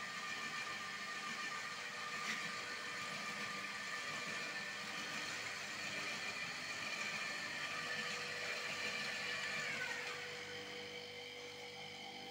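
Electric motor of a motorized hose reel running steadily as it drives the drum and level-wind guide on the spray hose. About ten seconds in, the whine drops in pitch and dies away as the motor stops, leaving a lower steady hum.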